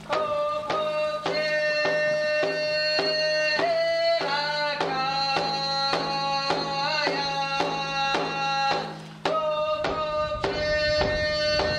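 Music: a Squamish song, one voice singing long held notes over a steady drum beat of about two to three strikes a second. The music dips briefly about nine seconds in and comes straight back.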